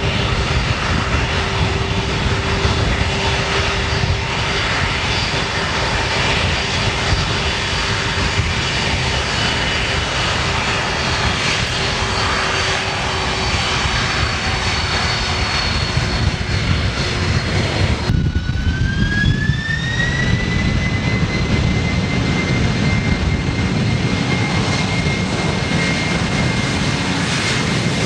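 Boeing 747's four jet engines running as the aircraft taxis and lines up on the runway, a steady loud rumble. About two-thirds of the way through, the engines spool up to takeoff thrust with a rising whine that then holds steady as the takeoff roll begins.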